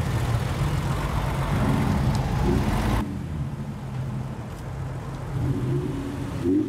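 Lowered cars' engines and exhausts at crawling speed: a loud low engine note as a Porsche 911 pulls away, dropping off abruptly about three seconds in. A black lowered Nissan Z then runs quieter as it rolls forward, with a short rise in revs near the end.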